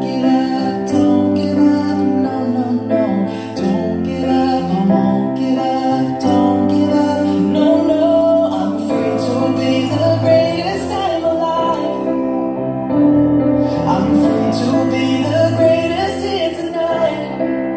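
Music: a song with a sung vocal over instrumental backing.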